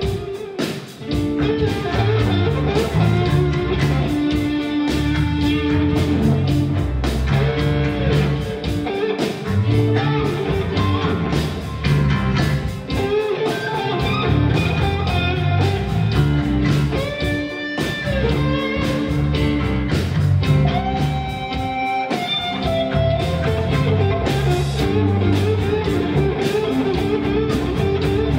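Live rock band playing with electric guitars to the fore, over bass guitar and drums.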